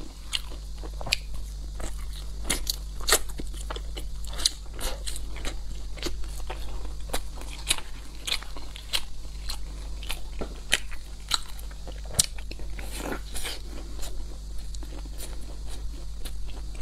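A person biting and chewing crisp fried dough close to a clip-on microphone, with irregular sharp crunches and crackles throughout.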